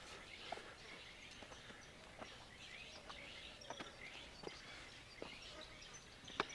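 Faint outdoor ambience with birds chirping in the distance and a few soft, scattered ticks; the sharpest tick comes near the end.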